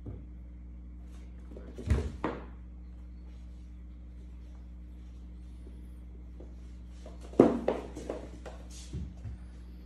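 Kittens play-fighting on a wooden floor: bumps and scuffles of their bodies and paws against the boards. Two thuds come about two seconds in, then a quick run of thumps and scrabbling from about seven seconds on, the first the loudest.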